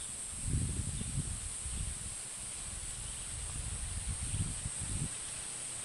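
Steady high-pitched drone of insects in the trees, with low rumbling on the microphone about half a second in and again around four seconds in.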